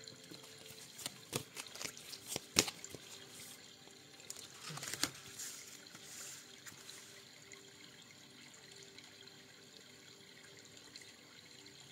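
Tarot cards being shuffled and spread by hand: a few sharp taps on the table and a brief rustling rush in the first five seconds, then only faint sliding.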